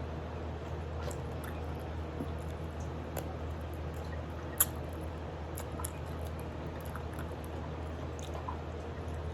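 Someone chewing chicken feet: scattered small wet clicks and squishes over a steady low hum, with one sharper click about four and a half seconds in.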